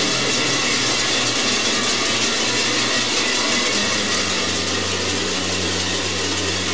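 Kurent's large cowbells clanging continuously as the wearer moves, many bells ringing together in a dense, unbroken din.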